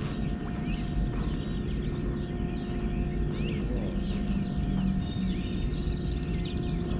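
Many birds singing and chirping at once, short quick calls overlapping throughout, over a steady low outdoor rumble.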